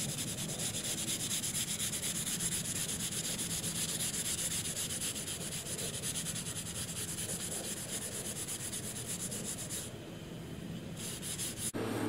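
Sandpaper rubbed rapidly back and forth by hand over the painted stripe on a motorhome's side, a dense, even scratching that eases off briefly about ten seconds in. Near the end it cuts to a steady low hum.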